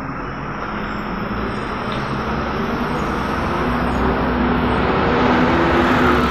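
MAN NG272 articulated diesel bus pulling away from a stop and accelerating past, its engine growing steadily louder, with road noise.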